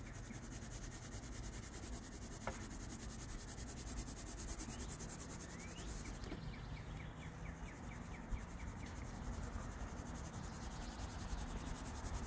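Colored pencil shading back and forth on sketchbook paper: a faint, rapid, rhythmic scratching that comes in runs of short strokes.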